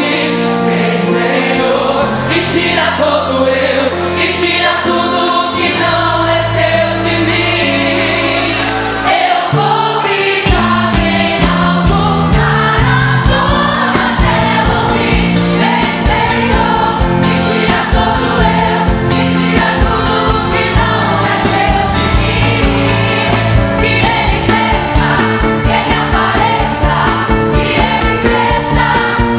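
Church choir singing a gospel song with instrumental accompaniment. Held low bass notes lie under the voices at first, then a steady beat comes in about ten seconds in.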